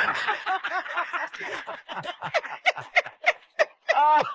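Men laughing hard in a long run of short ha-ha bursts, with a louder whoop of laughter near the end.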